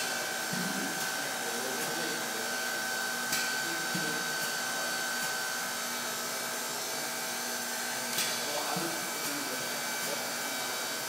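Steady air hiss and hum of a pneumatic robotic work cell, with a constant high tone running through it and a few sharp clicks, the first at the very start and others about three, four and eight seconds in.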